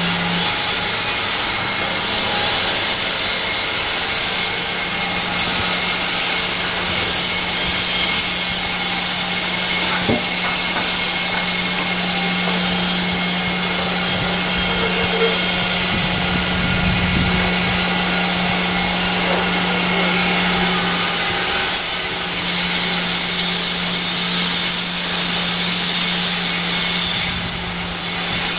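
Sawmill log saw running and cutting pine saw logs: a steady motor hum under a loud hiss of cutting. The hum drops out briefly about two-thirds of the way through.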